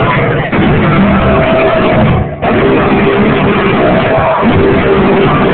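Loud live metal band jamming: distorted electric guitars and drums. The sound breaks off for a split second about two seconds in.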